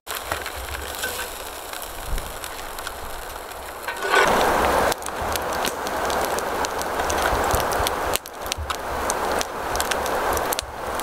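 Foil-lined chip bag crinkling and crackling as taco meat and toppings are spooned and dropped into it, with a low wind rumble on the microphone. The crinkling grows louder about four seconds in.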